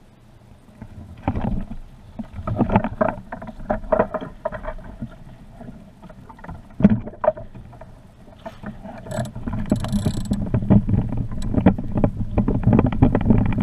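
Irregular knocking and rattling over a low rumble as a camera mount jolts across cracked, dried mud. It starts about a second in and grows denser and louder near the end.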